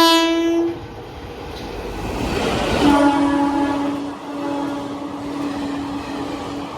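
Indian electric locomotive horns: a short, very loud blast, then the noise of a passing train swelling, and a long steady horn at a lower pitch held for about four seconds over the running noise of the train.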